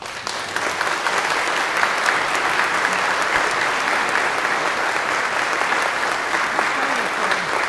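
A congregation applauding, breaking out suddenly and holding steady as a dense clatter of many hands clapping.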